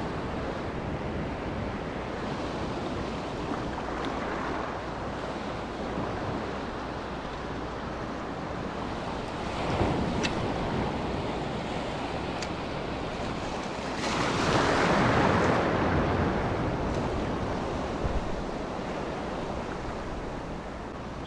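Sea water washing and lapping over a shallow reef flat, with wind on the microphone. The wash swells louder about ten seconds in, and again for a few seconds a little later.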